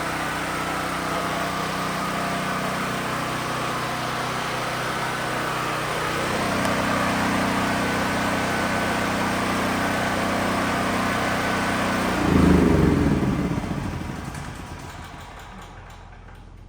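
An engine running steadily, its pitch stepping up about six seconds in, with a brief louder rev about twelve seconds in before it dies away.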